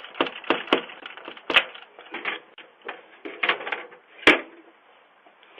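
Irregular clatter of sharp clicks and cracks, several a second, thinning out with a last louder crack about four seconds in.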